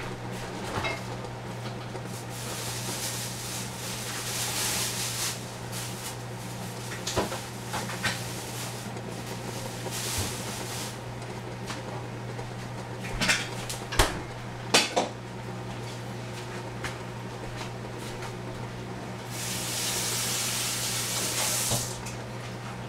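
Milk heating in a stainless steel saucepan on a gas burner, hissing in several stretches as it comes up to the boil, over a steady low hum. A few sharp clinks of kitchenware break in, the loudest three in quick succession about two-thirds of the way through.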